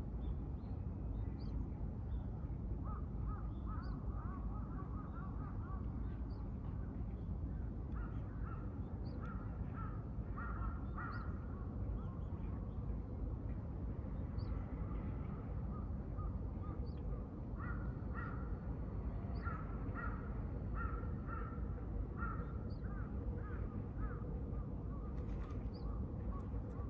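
Birds calling outdoors: runs of short repeated calls, starting a few seconds in, with faint high chirps every second or two, over a steady low rumble.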